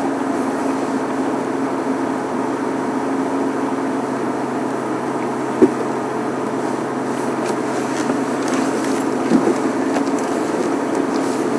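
Safari game-drive vehicle's engine idling steadily, with a single sharp knock about halfway through and a few fainter ones near the end.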